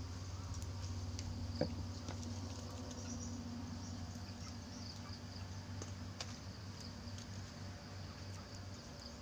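Insects chirping in a high, steady band over a low hum, with a few faint clicks as wild rambutans are peeled by hand.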